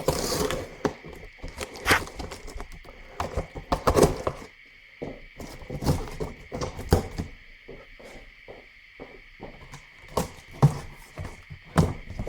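A cardboard shipping box being opened and handled: irregular knocks, thunks and clicks, with a few short scraping rustles of cardboard.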